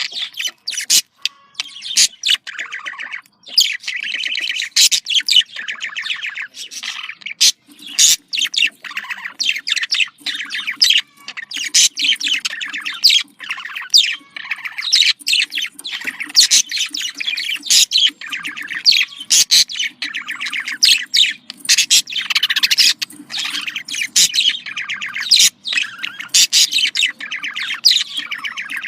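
Budgerigars chattering and warbling: a continuous stream of rapid chirps, trills and sharp clicks, with short squawks mixed in.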